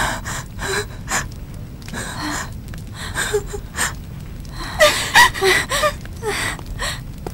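A person's emotional gasping breaths, a string of sharp breathy intakes at uneven intervals. Short pitched cries break in about five seconds in.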